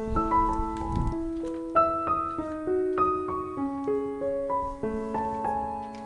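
Background piano music: a melody of held notes changing every half second or so, with a few low thuds in the first second.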